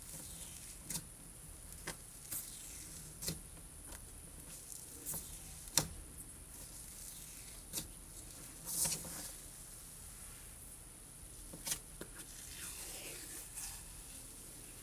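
Fluffy slime being stretched and squished by hand, with faint scattered clicks and small pops.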